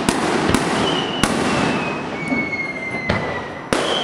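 Aerial fireworks going off: five sharp bangs over a steady rumble, with high whistling tones slowly falling in pitch through the middle.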